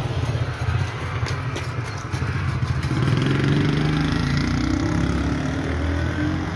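A small motor vehicle engine running, its hum steadier and louder from about three seconds in, over a low street rumble, with a few light clicks about a second in.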